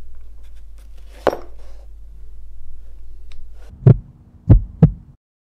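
Logo sound effect: a steady low hum with a few faint clicks and a sharp tick about a second in. Near the end come three deep, heavy thumps, the last two close together like a heartbeat; these are the loudest sounds.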